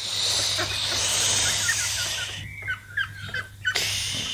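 Duckling peeping in short, high, repeated calls from under a plastic mesh cover. There is a rushing noise in the first two seconds, and a few knocks and scrapes in the second half as a concrete lid is set down on the cover.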